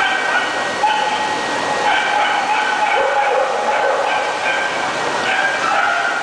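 Dog whining and yipping in long, high, drawn-out whines that come again and again, over background chatter.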